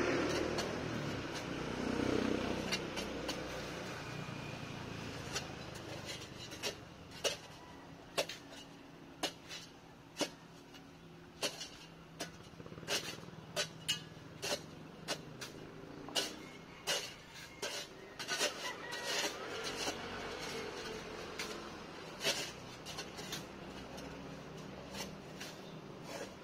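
Shovel blade digging into dry, sandy ground for a foundation trench: irregular sharp scrapes and chops, about one or two a second. A low rumble in the first few seconds fades out.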